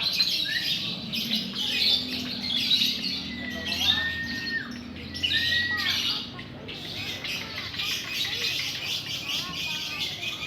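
Lovebirds chattering with a dense, continuous stream of rapid high-pitched chirps and trills, with two short level whistles about four and five seconds in.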